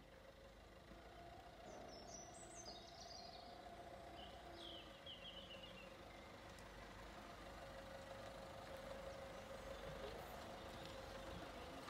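Faint, steady hum of a small van's engine reversing slowly with an empty boat trailer, growing a little louder as it comes closer. A few bird chirps sound over it about two and five seconds in.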